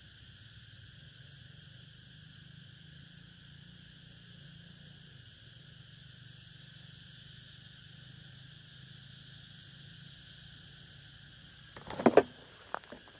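A steady high-pitched drone over a faint low hum; about a second before the end, a quick cluster of loud sharp knocks and rustles.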